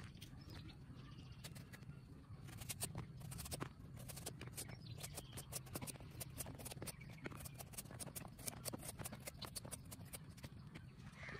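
Kitchen knife shaving the rind off a watermelon: a string of irregular crisp cutting clicks, thickest about three seconds in.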